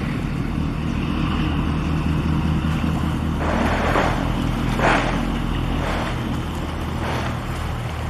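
Low, steady drone of a ship's diesel engines across the harbour channel, with several rushing surges of noise about a second apart, starting a little past the middle.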